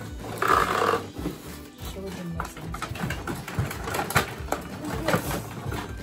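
Cardboard box and plastic packaging of a toy being handled and pulled open: rustling, scraping and tapping, loudest in a rasping scrape about half a second in, over background music.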